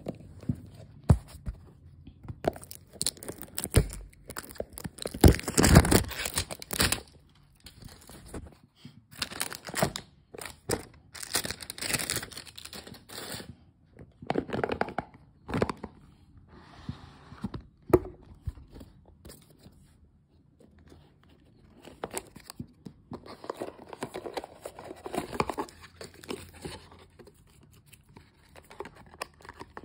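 Smartwatch packaging being torn open and crinkled by hand, in irregular bursts of ripping and rustling with scattered knocks and clicks as the box is handled.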